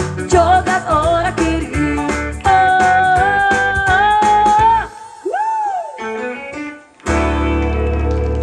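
Live pop music from a singer and band: singing and guitar over bass and drums, then a long held note. After a short break with a sliding note, the whole band comes back in on a held chord about seven seconds in.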